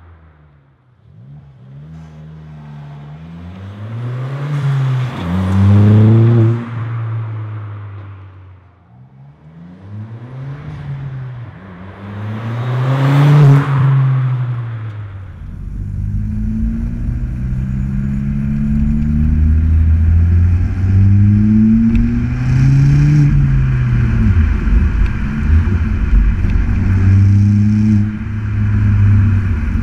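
Ford Fiesta ST180's 1.6-litre turbocharged four-cylinder through a 3-inch resonated stainless cat-back sports exhaust. It accelerates hard past twice, the note climbing through the gears and dropping at each shift. Later it is heard close at the twin tailpipes on the move: a steady, deep exhaust note over road and wind rush, rising and falling with the gear changes.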